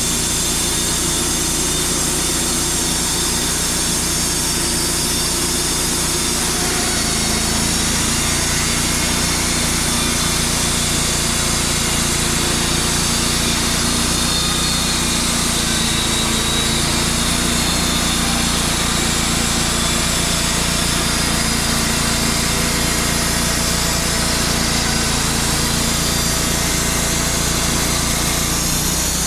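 Wood-Mizer LT35 portable band sawmill running steadily, its engine and band blade going. The sound fills out lower about seven seconds in.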